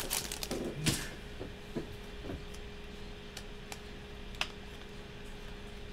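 Foil trading-card pack wrapper crinkling as it is torn open in the first second, then a few faint clicks as the cards are handled, over a steady low hum.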